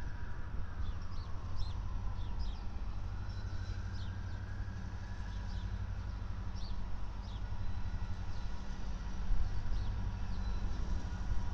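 Terminal Railroad (TRRA) EMD SD60I diesel locomotives, each with a 16-cylinder two-stroke EMD 710 engine, approaching under heavy throttle. Their engines make a steady low rumble as they work hard and blow black smoke.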